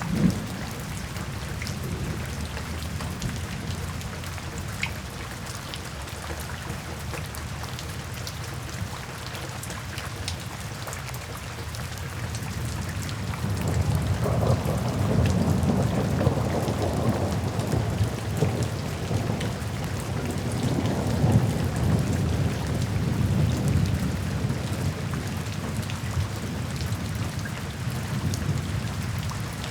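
Steady rain falling during a thunderstorm, with low thunder rumbling underneath. About halfway through, a long roll of thunder swells up and rumbles for around ten seconds before easing back.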